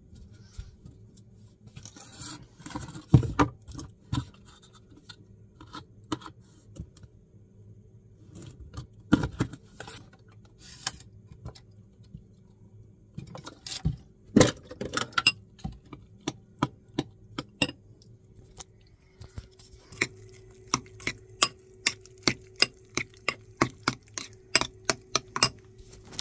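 Kitchen clatter of items being handled and set down on a counter around a ceramic bowl. Near the end, a metal spoon clinks steadily against the bowl, about two to three times a second, as a thick oat mixture is stirred. A steady low hum runs underneath.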